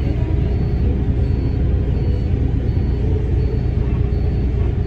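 Steady low rumble of an idling vehicle engine heard from inside the cabin, with a faint high tick repeating about every three-quarters of a second.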